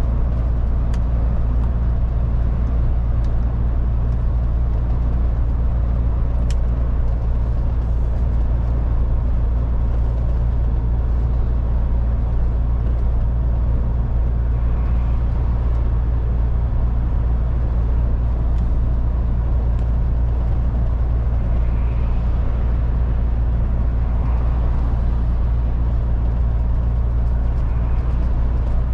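MAN TGX 18.440 semi-truck driving at a steady speed: a constant low engine and road drone that holds level throughout, with a few faint clicks.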